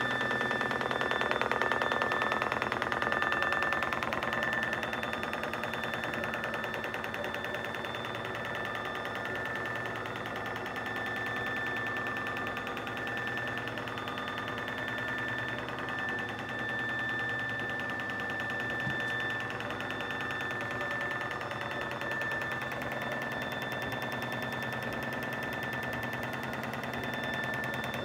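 Screw-drive mechanism of a Wurlitzer organ console lift running as it lowers the console: the drive shaft turns a large greasy vertical screw. The sound is a steady mechanical whir with a thin high whine held on one pitch, a little louder in the first few seconds.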